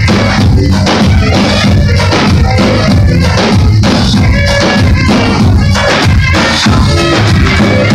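Loud Turkish dance music: two davul bass drums beat a steady rhythm of about two strokes a second over an amplified band with a deep bass line.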